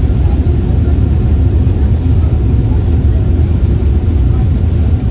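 Steady low rumble aboard a passenger ferry under way.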